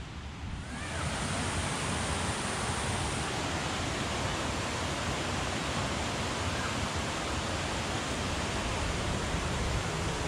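Steady rush of water, coming in about a second in and then holding even.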